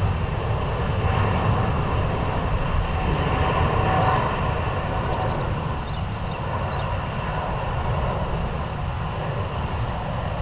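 Jet airliner engines rumbling steadily, slowly fading.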